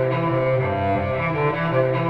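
Recorded music: bowed strings, led by cello, playing long held notes that change every half second or so.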